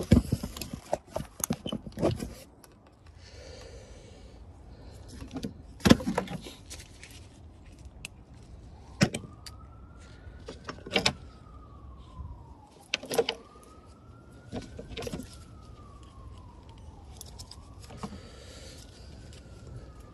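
Small metal tools and bits clinking and knocking now and then during hands-on work on a car. From about halfway through, a siren wails, rising and falling in pitch about every four seconds, three times.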